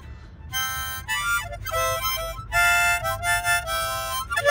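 Harmonica played by a child: a string of short chords and notes in phrases with brief breaks between them, some notes bending in pitch.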